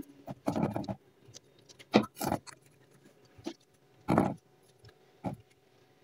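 A paintbrush dabbing and scraping a liquid coating into a plastic mold. Irregular short knocks and scrapes come as the brush strikes the mold and the rim of the bowl, with the loudest about two seconds in and again about four seconds in.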